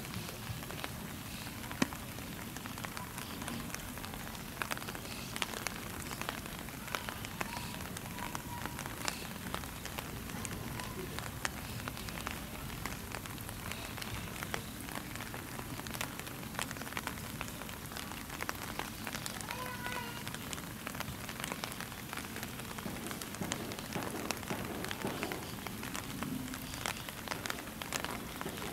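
Steady rain falling, with many small sharp drop taps over an even hiss.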